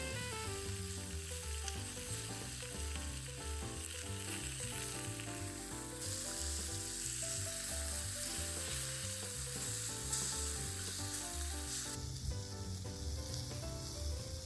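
Food sizzling as it fries in an iron mess tin, the sizzle shifting abruptly about six and twelve seconds in, over background music.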